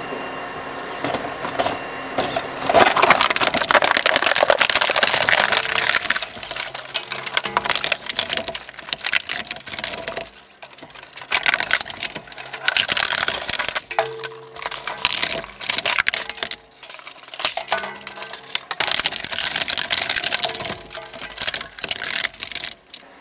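Twin-shaft shredder chewing up a plastic radio-controlled toy car. The machine hums steadily at first; about three seconds in, loud crunching and cracking begins as the plastic body is torn up. It carries on in spells, with short lulls, as the chassis, wheels and electronics go through the cutters.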